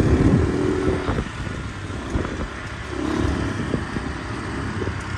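Motor scooter engine running on the move, easing off about a second in and picking up again around three seconds, with wind rumbling on the microphone.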